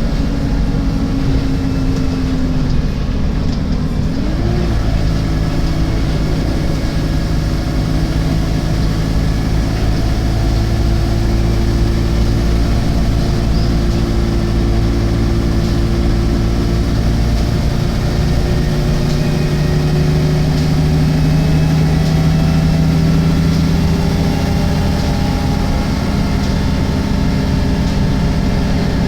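Diesel engine of an Alexander Dennis Enviro 300 bus on a MAN chassis running under way, its note rising and falling several times as the revs change.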